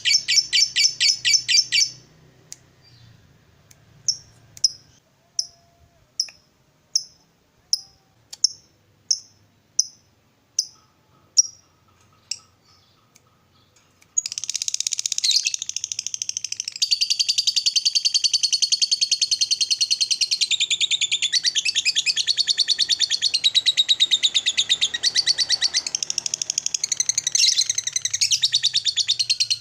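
Lovebird calling: a brief fast chattering trill, then a string of single sharp chirps about one every three-quarters of a second, then from about halfway a long unbroken chattering trill, the lovebird's 'ngekek'.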